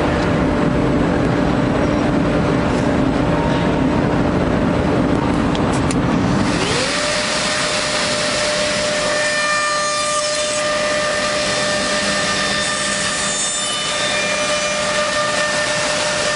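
CNC 45-degree tenoning and mortising machine running: a steady motor hum, then about six and a half seconds in a motor spins up to a higher pitch and runs on steadily with a bright hiss and a high whine.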